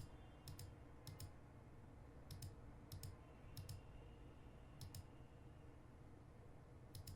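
Faint computer mouse button clicks, seven of them at irregular intervals, each heard as a quick press and release, over a low steady room hum.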